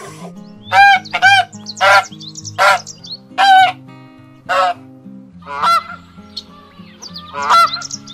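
Canada geese honking: a series of about eight loud, short honks, roughly a second apart.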